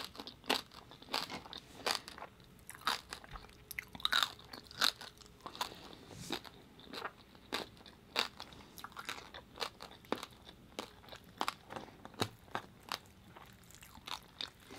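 A person chewing roasted pig head (lechon), a run of sharp, irregular crisp crunches and mouth clicks.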